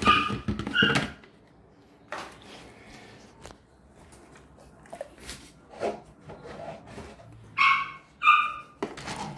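A dog's short, high-pitched yips: two at the start and two more near the end, with a few soft clatters in between.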